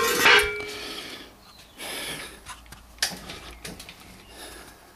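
A sharp metal clank with a brief ring as a steel axle stand is taken hold of, then quieter knocks and rustling as it is handled and moved under the car.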